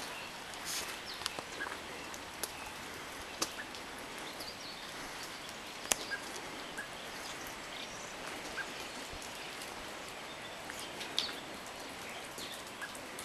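Outdoor village ambience: a steady hiss with scattered sharp ticks, the strongest about six seconds in, and a few faint bird chirps.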